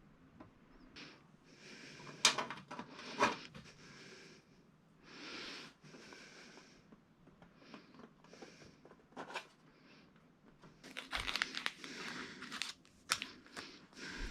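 Hands working with small parts and materials: scattered crinkling and rustling with sharp clicks. The two loudest clicks come about two and three seconds in, and the handling gets busier near the end.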